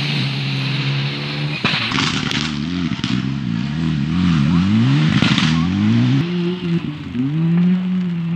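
Rally car engine running hard, its revs repeatedly climbing and dropping sharply with gear changes. There are a couple of sharp cracks in the mix.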